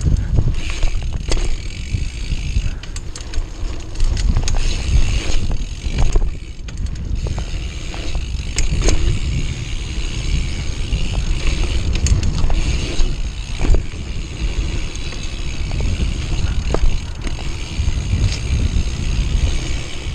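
Bicycle ridden fast down a dirt trail: tyres crunching and hissing over the dirt, with sharp clicks and rattles from the bike as it hits bumps, under a heavy low rumble of wind on the camera's microphone.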